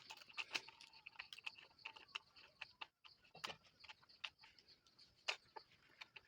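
Faint, irregular small clicks and ticks of a hand screwdriver tightening the screws of a power drill's housing during reassembly, with a brief break about three seconds in.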